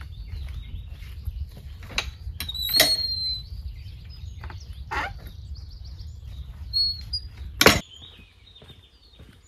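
Wooden field gate being opened and gone through: its metal latch and timbers knock and clack several times, with a brief squeak about three seconds in and a loud knock a little before eight seconds. A low wind rumble on the microphone runs under it and stops abruptly at that last knock.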